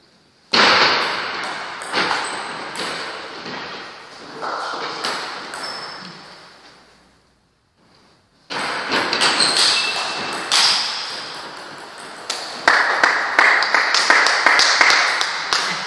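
Table tennis rallies: the ball clicking back and forth off the bats and the table, each hit echoing in a large hall. One rally starts about half a second in and dies away by about six seconds. After a short pause, a second rally of quicker hits starts about eight and a half seconds in.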